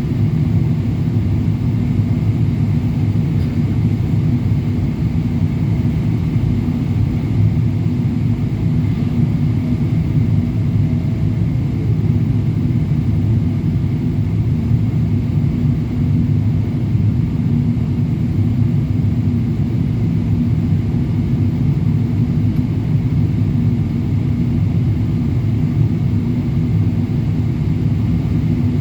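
Boeing 777-200LR's twin GE90 turbofans and airflow: a steady low rumble with a faint hum, unchanging throughout, as the airliner flies its descent to land.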